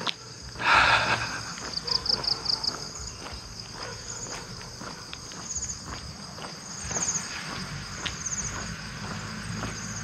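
Tropical insects trilling steadily, with short pulsing chirps, over footsteps on a concrete lane. About a second in there is a brief loud rush of noise, and a low hum comes in near the end.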